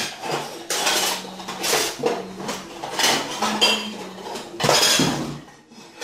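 Glasses and dishes clattering and clinking against each other as a container is pulled out from among them: a run of sharp knocks with a ringing, glassy tail.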